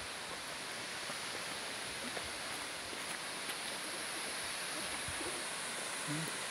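Steady, even rush of Jaein Falls, the waterfall pouring into its basalt gorge.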